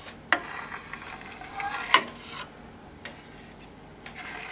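Stainless steel knife cutting through set mozzarella curd in a stainless steel pot, the blade scraping against the pot, with two sharp clicks of metal on metal about a second and a half apart.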